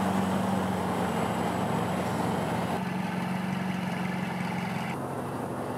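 Ferrari 488 Mansory's twin-turbo V8 idling, a steady low hum. The sound shifts slightly about three seconds in and again about five seconds in.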